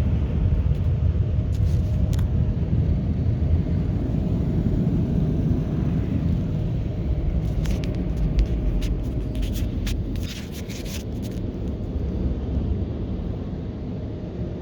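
Laser Wash 4000 touchless car-wash machinery heard from inside the car: a steady low rumble that slowly fades, with a few brief crackles in the middle.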